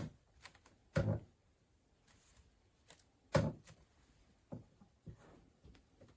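Three dull knocks, at the start, about a second in and about three seconds in, followed by fainter taps and clicks.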